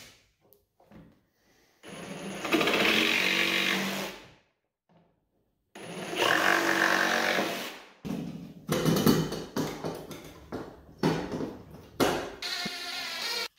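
Ridgid cordless jigsaw cutting through a plywood drawer front in two runs of about two to three seconds, separated by a short pause; the cuts open the recess for a drawer handle. In the last few seconds there is a string of irregular knocks and a short rumble as a plywood drawer is pushed along its tracks.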